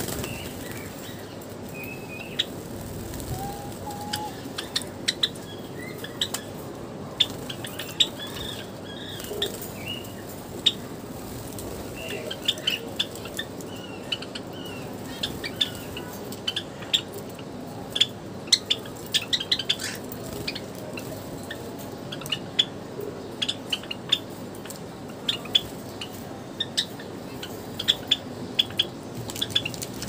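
Java sparrows chirping: many short, sharp high chips scattered irregularly, in quick clusters, over a steady background hiss.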